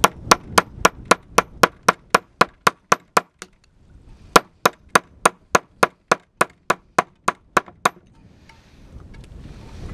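A 1 kg club hammer striking rock in two quick runs of sharp, evenly spaced blows at about four a second, with a pause of about a second between them, to free a stone embedded in the rock. Wind noise rises on the microphone near the end.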